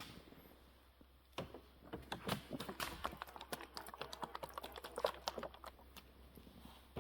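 A rapid, irregular run of light clicks and knocks, like small parts or tools being handled, starting about a second and a half in and thinning out near the end.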